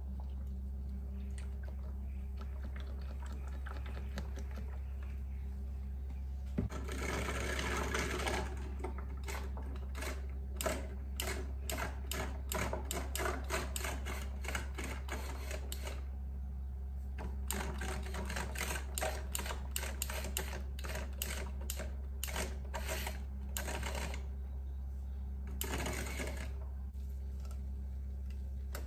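Handheld battery milk frother whisking milk in glasses of iced coffee, its small motor running with the whisk rattling fast against the ice cubes and glass. It runs in two long spells with a short pause between.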